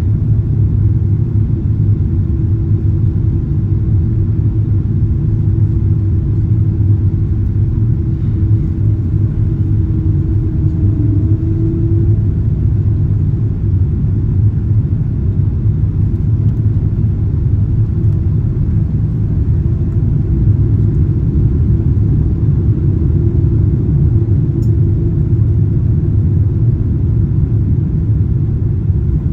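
Steady low rumble inside the cabin of a Boeing 777-200ER on approach: engine and airflow noise heard from a window seat behind the wing, with a faint hum over it.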